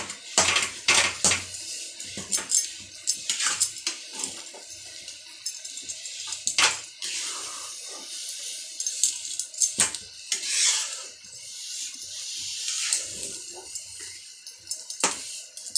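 Spatula scraping and knocking against a steel kadai as a thick semolina dough is stirred and turned over on the stove, kept moving so it does not stick to the bottom. The sound is quick, irregular clinks and knocks with a few longer scrapes in the second half.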